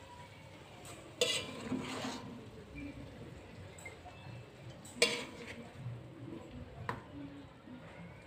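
Spatula scraping and clinking against an aluminium wok and a ceramic plate as braised fish and sauce are served out. A few sharp clinks stand out, the loudest about a second in and again about five seconds in.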